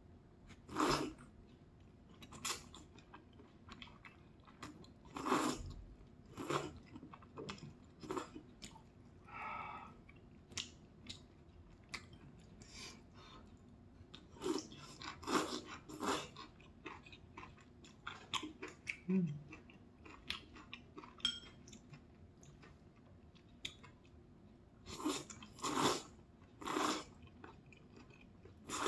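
Close-up sounds of a person eating udon noodles: long slurps as the noodles are sucked in, with chewing between them. The loudest slurps come about a second in, near five seconds, around fifteen seconds and again near the end.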